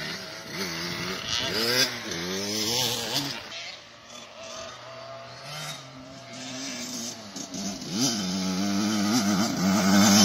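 KTM 65 two-stroke youth motocross bike revving hard, its engine pitch rising and falling as the rider works the throttle and gears. It fades for a few seconds in the middle, then grows louder near the end as the bike comes closer.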